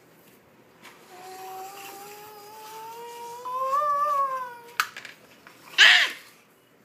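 A child's voice holding one long drawn-out note that rises slowly in pitch for about three and a half seconds, then dips and stops. A click follows, then about a second later a short, loud vocal burst.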